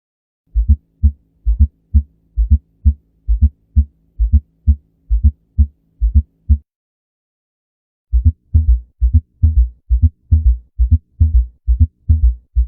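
Recorded abnormal heart sounds: a fast run of low thumping beats, about three a second, with a steady low hum under them for the first six seconds. The sound cuts out for about a second and a half, then the beats resume without the hum.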